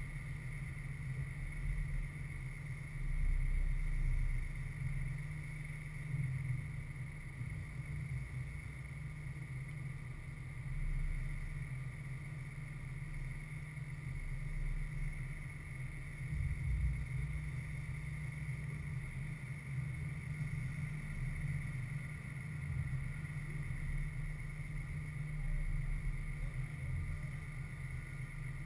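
Wind buffeting the microphone of a camera, a low rumble that swells and fades unevenly, over a steady faint high-pitched whine. No distinct game sounds stand out.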